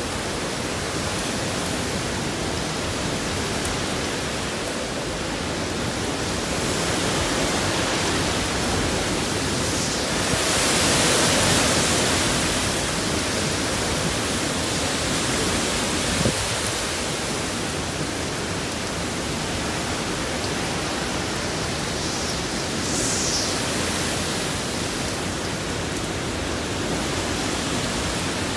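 Hurricane-force wind blowing steadily through palm trees, a continuous rushing noise that swells with a stronger gust about ten seconds in.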